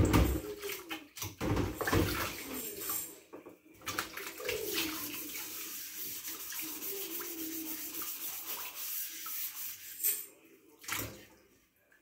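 Washing-up water sloshing and splashing in a stainless steel sink as a plate is washed by hand, with a few knocks of crockery near the start and again about ten seconds in.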